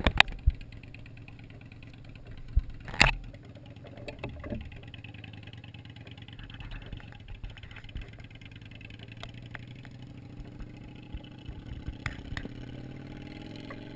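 Motorcycle engine idling steadily, its pitch climbing gently over the last few seconds. A few sharp knocks come near the start and about three seconds in.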